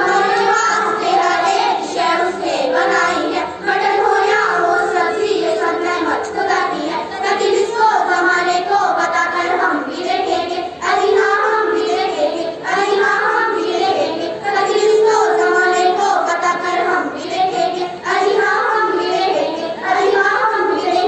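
Girls' voices singing a qawwali together, with long held notes, over rhythmic handclapping.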